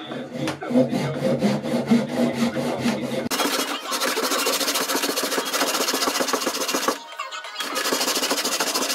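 Back saw cutting through a wooden block held in a vise, a continuous rasp of strokes that starts a few seconds in, stops briefly about seven seconds in, then resumes. Background music with a beat fills the first few seconds.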